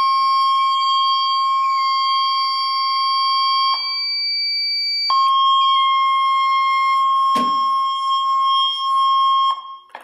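Wheelock SafePath voice evacuation system sounding its alert tone through the fire alarm speakers, between spoken evacuation messages: a steady high beep held for about four seconds, a break of about a second, then held again for about four seconds. A single sharp knock about seven seconds in.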